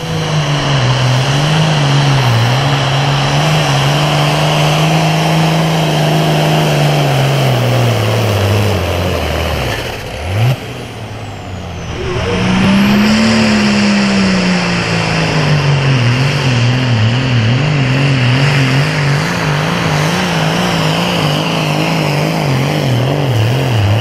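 Super Farm class pulling tractor's diesel engine running hard at high revs under load, its pitch wavering up and down. About ten seconds in the revs sag and briefly drop away, then climb high again about two seconds later and hold with the same wavering note.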